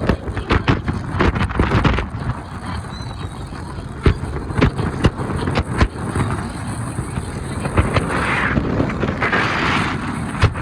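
Wind buffeting the microphone over the low, steady rumble of a sightseeing boat's engine, with many sharp knocks and pops throughout.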